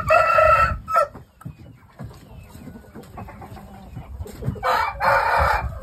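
Shamo gamefowl in their pens calling loudly: a short harsh call at the start and a longer one about four and a half seconds in.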